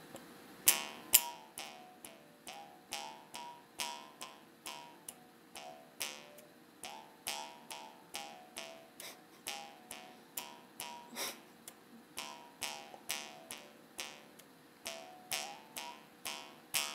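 Bamboo jaw harp (Ainu mukkuri) played by tugging its string, about two twangs a second, each ringing briefly and shifting in pitch as the mouth changes shape. The player is a beginner, still practising.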